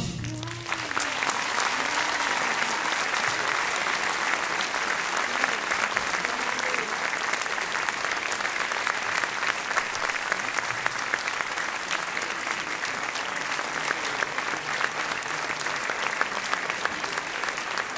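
Audience applauding steadily: dense, even clapping from a full hall.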